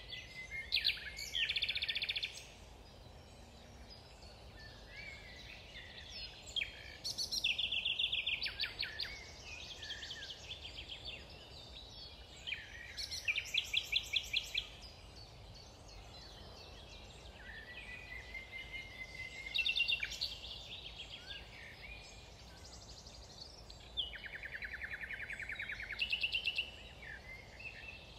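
Wild songbirds singing in the woods: short trilled and whistled phrases every few seconds, over a faint steady low background noise.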